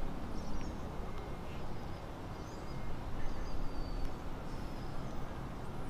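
Outdoor ambience: a steady low rumble with a few faint, brief bird chirps scattered through it.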